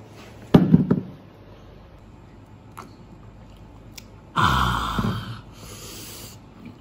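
A man's voice bursts out twice: briefly about half a second in, then a loud laugh about four seconds in that lasts about a second.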